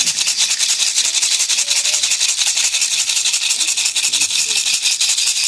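Maracá (gourd rattle) shaken in a fast, even rhythm without a break, as in a Jurema Sagrada ritual.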